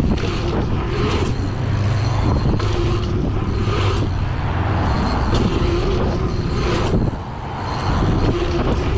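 Wind rushing over a bike-mounted camera's microphone, with mountain bike tyres rolling over packed dirt jumps. The noise dips briefly about seven seconds in.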